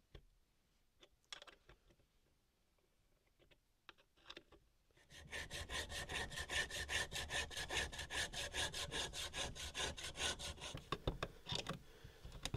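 Hand hacksaw sawing the head off a bolt flush with a wooden board, in quick, even back-and-forth strokes that start about five seconds in and stop near eleven seconds. A few light clicks of handling come before the sawing.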